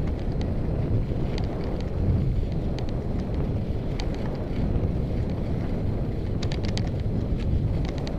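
Wind buffeting the microphone of a skier moving along a snowy track: a steady low rumble, with brief scratchy ticks of skis on the snow now and then and a quick cluster of them about six and a half seconds in.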